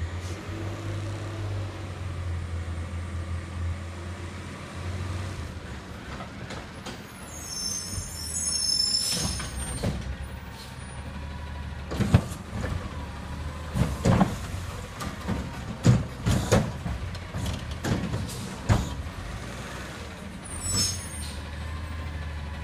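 Heil Curotto-Can garbage truck on an Autocar chassis emptying recycling carts. The engine runs steadily and the air brakes hiss about 8 seconds in and again near the end. From about 12 to 19 seconds comes a run of loud bangs and clatters as the carts are shaken out and recyclables drop into the can.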